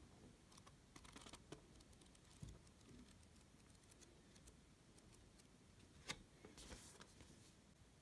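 Faint pages of a paperback book riffled and flipped by hand, with quick papery flutters about a second in and again near the end. A soft thump about two and a half seconds in and a sharp tap about six seconds in come from the book being handled.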